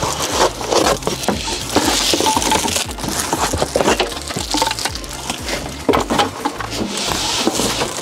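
Cardboard box and plastic packaging crackling and rustling, with many small clicks and knocks, as the metal parts of a camping gas grill are pulled out of their box, over background music.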